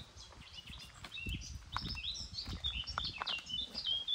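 Small songbirds chirping busily: many short chirps, several of them falling in pitch, over a low background rumble.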